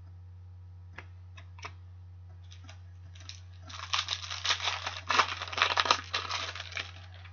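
Trading cards and their wrapping being handled: a few light clicks about a second in, then dense crinkling and crackling for about three seconds, starting just past halfway.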